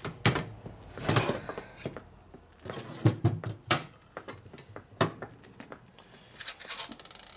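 Aluminium motorcycle crankcase and gear cover being handled and set on a workbench: a string of irregular metal knocks and clunks.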